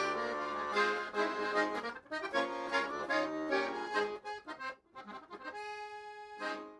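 Instrumental music: a run of short notes, ending on a held chord that cuts off suddenly.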